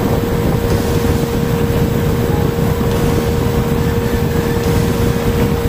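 Small Tohatsu 9.8 hp tiller outboard motor running steadily at speed with an even whine, over the rush of water and wind past the boat.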